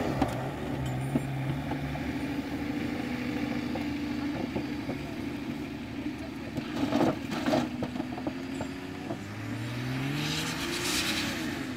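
Nissan off-roader's engine running under load as it tows a board across grass on a rope, its pitch rising near the end as it revs up. There are short bursts of rushing noise about seven seconds in and again near the end.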